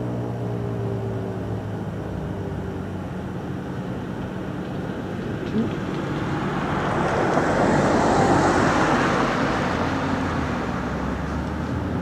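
The low tail of a Federal Signal 2001-DC siren winding down, its falling tone fading out in the first few seconds. Then a vehicle passes by as a broad rushing noise that swells, is loudest about two-thirds of the way through, and fades.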